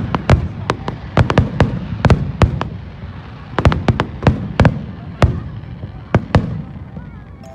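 Aerial fireworks shells bursting, many sharp bangs in quick succession over a low, echoing rumble. They thin out after about five seconds, and the last bang comes near the end.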